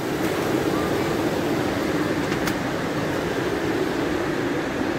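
Heavy typhoon rain pouring, a steady rushing noise, with a light click about halfway through.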